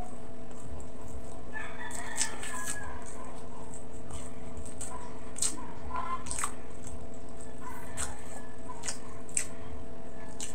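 Wet chewing and lip-smacking of someone eating braised pork hock and rice by hand, with a few sharp smacks, over a steady hum. A bird calls in the background about two seconds in, and briefly again later.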